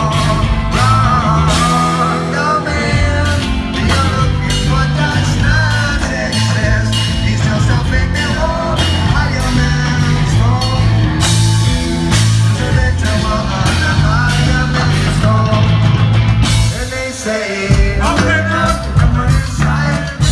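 Live rock band playing with electric guitar, bass, drums and keyboard, and a lead vocal over a steady beat. About three-quarters of the way through the low end drops out briefly, then the drums bring the band back in.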